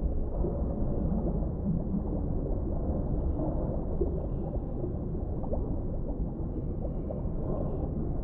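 Underwater ambience: a steady, low rumble of deep water with soft gurgles and bubbles scattered through it.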